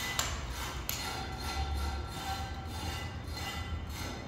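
A few sharp taps of a hand tool on the conduit fixings in the first second, then faint music with held tones.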